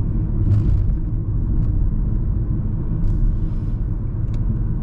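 Steady low rumble of road and engine noise inside the cabin of a Mahindra XUV 3XO at cruising speed, with a couple of faint short clicks.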